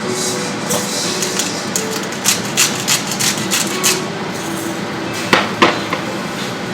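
A run of sharp knocks and clatters, the two loudest a little past five seconds in, over a steady rushing noise.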